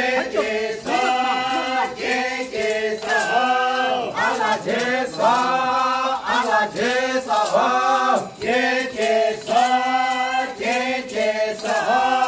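A group of men and women singing a traditional chant together, unaccompanied, in short repeated phrases.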